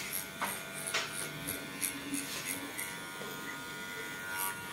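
Cordless electric hair clipper running with a steady buzz as it is worked over the back of the head, with two sharp clicks in the first second.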